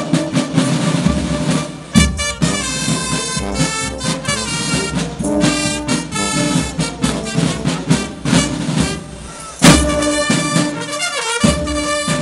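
A banda brass band of trumpets and trombones with marching drums playing a lively tune, the drums striking a steady beat under the horns. The band drops back briefly and then comes in with a loud full-band hit about ten seconds in.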